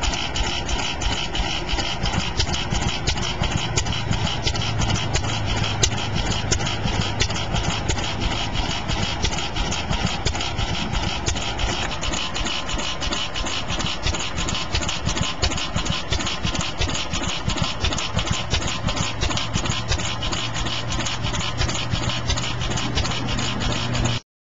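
Fairbanks Morse flywheel engine fuelled by wellhead gas, running steadily as it drives an oil well pump. Its beat comes through as a quick, even clatter of knocks.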